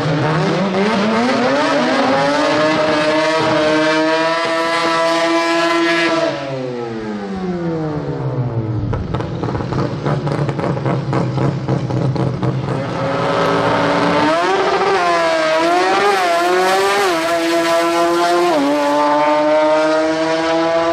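Naturally aspirated Mazda 13B two-rotor rotary engine in a Mazda R100 drag car. Its revs climb and hold high for about six seconds, then fall back to a low idle. Later the revs rise again as the car launches, the pitch climbing and dropping back at each gear change, and near the end it holds a high steady note down the track.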